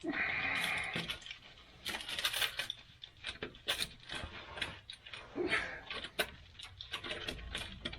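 Aluminum foil crinkling and rustling as it is scrunched and packed in by hand, with many small irregular clicks and crackles.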